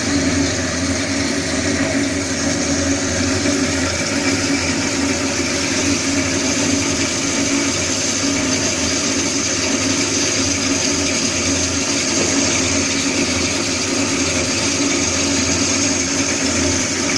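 FDB Maschinen metal-cutting band saw running: a steady mechanical hum with a hiss above it, unchanging throughout.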